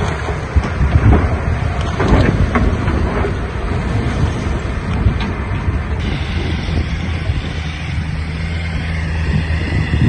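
Diesel engine of heavy earthmoving equipment running steadily, with a few clanks in the first three seconds. From about six seconds in, a higher steady whine joins the engine.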